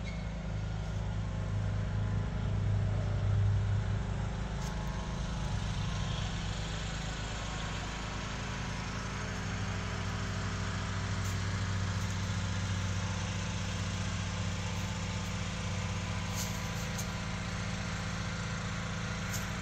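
A steady low mechanical hum, like an engine running at a constant speed, swelling slightly a few seconds in.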